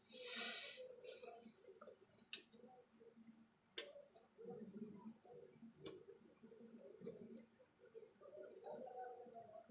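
Scattered sharp clicks and two short bursts of hiss near the start, over a faint murmur of voices.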